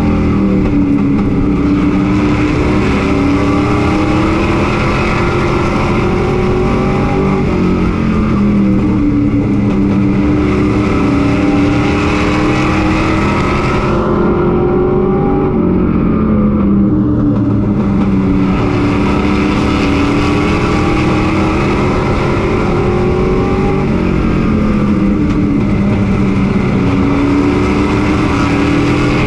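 Chevy Silverado pro race truck's engine at racing speed, heard from inside the cab: its note falls and climbs back up again and again as it lifts off and accelerates around the track, over a steady rush of wind and road noise.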